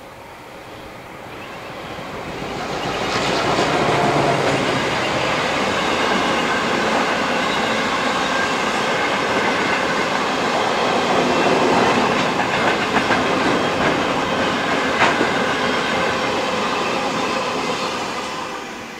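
Freight train hauled by diesel locomotives 42107 and EL64 passing with empty ballast wagons: the locomotive noise builds over the first few seconds, then the steady running noise and wheel clatter of the wagons on the rails, with sharp clicks near the middle, fading away near the end.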